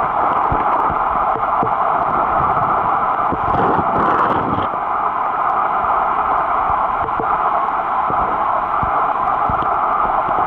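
Steady, muffled noise of a camera recording underwater, with scattered short clicks and a brief louder rush of water about four seconds in.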